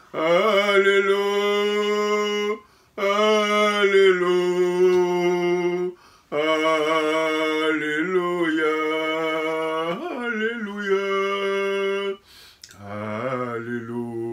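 A man's voice singing a slow, wordless melody in long held notes, in four drawn-out phrases with short pauses for breath between them.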